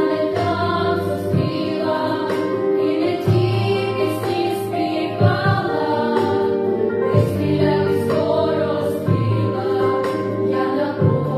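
Young vocal ensemble singing a song together, with instrumental accompaniment and a low beat about every two seconds.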